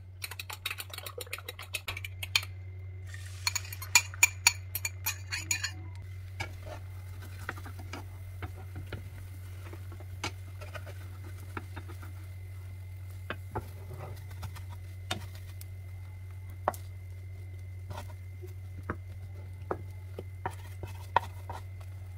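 A metal fork beats eggs in a glass bowl with quick clinking strokes for the first few seconds. After that, a slotted wooden spatula taps and scrapes now and then in a nonstick frying pan as the omelette cooks. A steady low hum runs underneath.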